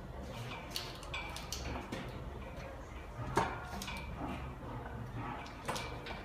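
Irregular metallic clicks and clinks of hand tools and fasteners against a transmission being fitted from below, a few ringing briefly, the sharpest about halfway through, over a steady low hum.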